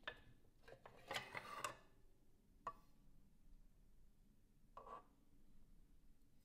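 Near silence with a few faint clicks, and a brief patch of rustling and light clatter about a second in.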